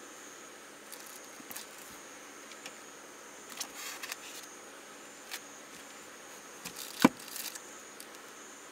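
Handling sounds at a top-loading portable fridge: small clicks and a rustle of a plastic-wrapped tray being lifted out, then one sharp knock about seven seconds in as the fridge lid is shut, over a faint steady hiss.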